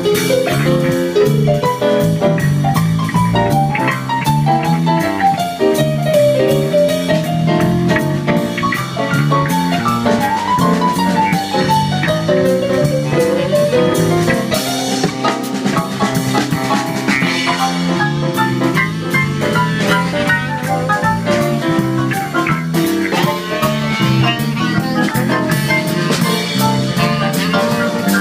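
Live band playing upbeat jazz: a Yamaha electronic keyboard carries the melody over bass guitar and a steady drum beat.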